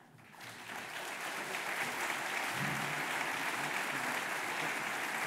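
Audience applauding, swelling over the first second into steady clapping.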